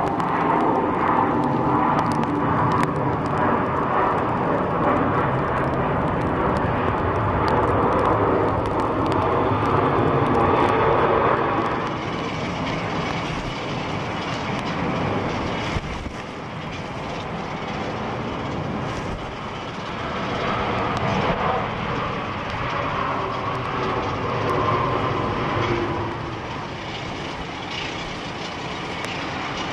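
Airliner jet engines at high power on a wet runway: steady jet noise with a whine of fan tones. The loudest part comes first, a four-engine Airbus A340 rotating for takeoff. After about 12 seconds it drops back to a twin-engine Boeing 777 and then a rear-engined Boeing 717 on the runway.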